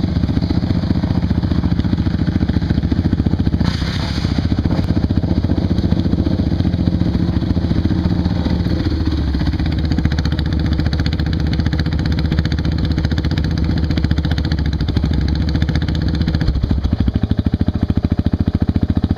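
Off-road vehicle engine running steadily with a fast even beat, its note shifting about nine seconds in and again near sixteen seconds, with a short burst of noise about four seconds in.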